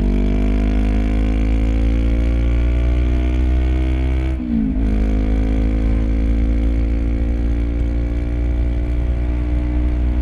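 Honda CB500X's 471 cc parallel-twin engine through a LeoVince LV10 exhaust, heard close at the exhaust, pulling under acceleration with its pitch rising. About four and a half seconds in the pitch drops with a brief dip as it shifts up a gear, then it climbs steadily again.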